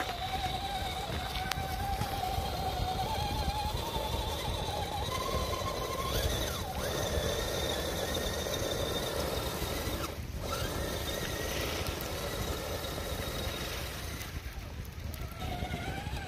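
Small electric motor whining in a steady tone that climbs slowly in pitch over the first several seconds, over a constant low rumble. The whine briefly drops out about ten seconds in.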